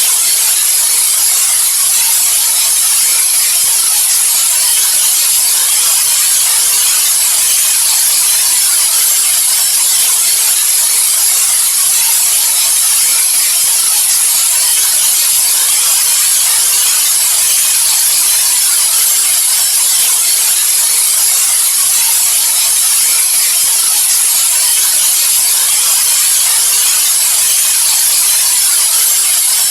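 White noise: a steady, unbroken hiss, strongest in the high treble and thin in the bass.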